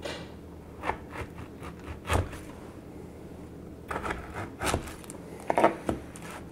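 Chef's knife pressed down through a thick, chilled slab of chocolate granola bar on a wooden cutting board: a series of short crunching, scraping cuts, the blade knocking on the board, loudest a little before the end.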